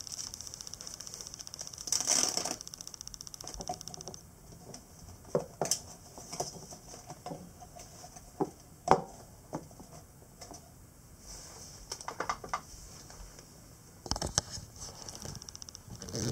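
A single-serve drip coffee bag and its foil packet being handled: a rasping burst about two seconds in, then scattered clicks, taps and rustles of paper and foil as the bag is set up for brewing. A steady high hiss runs underneath and drops out for several seconds in the middle.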